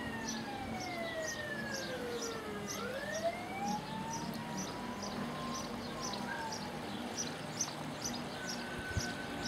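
Siren wailing: its pitch falls slowly for about three seconds, then rises again and fades. A faint, regular high ticking about twice a second runs under it.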